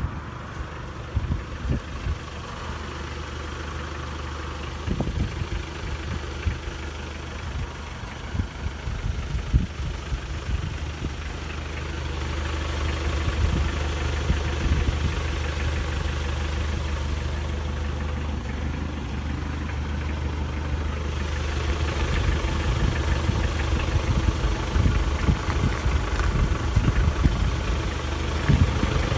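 Hyundai H1 van's engine idling with a steady low hum. Irregular low thumps sound on the microphone, mostly in the first half, and the hum grows a little louder about twelve seconds in.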